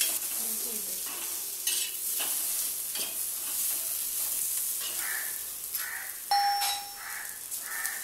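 Sliced capsicum and onion sizzling in hot oil and butter in a pan on a gas stove, stirred and scraped with a spatula in scattered clicks and scrapes. A short metallic ding sounds about six seconds in.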